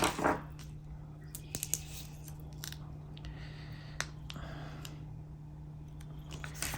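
Small scissors cutting flowers off a sticker sheet: a few sharp snips and a short soft rustle of paper, over a steady low hum.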